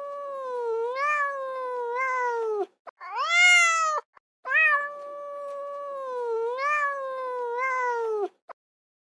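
Domestic cat meowing. A long, drawn-out meow ends with a falling pitch, a shorter, higher meow comes about three seconds in, then another long meow follows.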